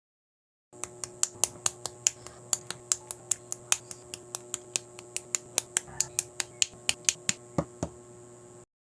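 Plastic LEGO-compatible bricks clicking and snapping together in quick succession, about four or five sharp clicks a second, over a steady low hum. The clicking starts about a second in and cuts off abruptly near the end.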